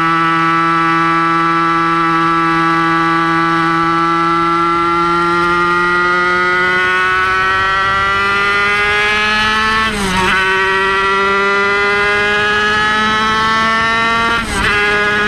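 Kreidler Van Veen 50cc racing motorcycle's two-stroke single-cylinder engine at high revs under full acceleration, its pitch climbing steadily. There are two quick upshifts, about ten seconds in and near the end, each a brief break followed by a drop in pitch before it climbs again.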